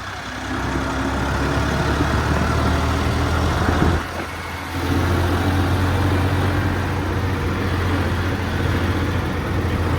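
Farmtrac 50 tractor's diesel engine running steadily as the tractor drives along the road. The sound dips briefly about four seconds in, then returns at its earlier level.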